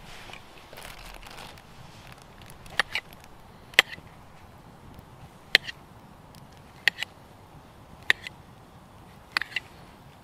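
Knife blade cutting through a mushroom and striking the small metal tin lid beneath it: sharp clicks with a short metallic ring, one or two at a time about every second and a half, starting about three seconds in.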